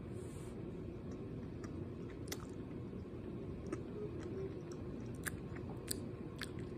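A person chewing a gummy candy with the mouth mostly closed: faint, with a few soft wet clicks now and then over a steady low room hum.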